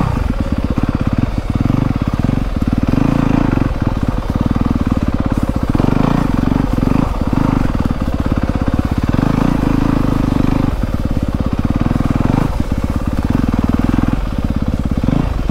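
2024 Yamaha YZ250FX's 250 cc single-cylinder four-stroke engine running at low trail speed, with the throttle worked on and off. The engine note dips briefly a few times.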